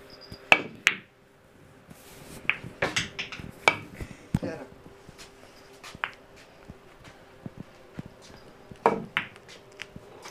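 Pool balls clacking: sharp clicks of the cue tip striking balls and balls knocking together, scattered irregularly, loudest about half a second in and again near the end, over a faint steady hum.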